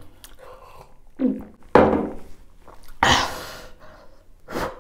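A person eating, making short mouth and breath sounds: two brief hums, a breathy burst about three seconds in, and a short knock near the end.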